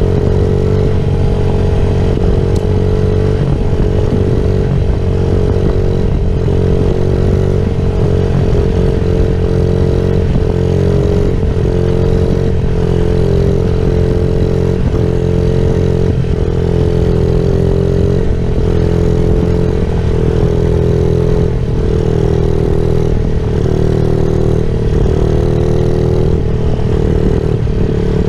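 Small dirt bike's engine running at a steady cruising speed, its note dipping slightly every second or two, over a low rumble.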